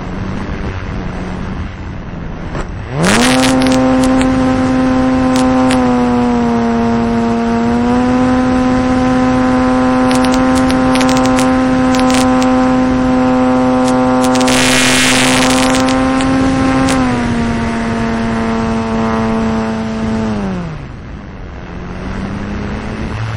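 Onboard sound of an RC T-28 Trojan model plane's motor and propeller: running low, then opened up sharply about three seconds in to a steady high drone for the takeoff and climb. It is throttled back with a falling pitch near the end, then picks up a little again. Short rushes of wind noise come in around the middle.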